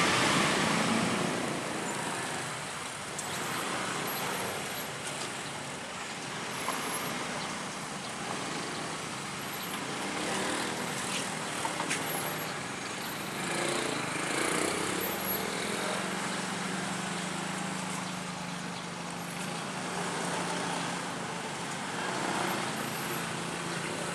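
Road traffic running past: a steady mix of engine and tyre noise from buses and other vehicles, with no horn tune standing out.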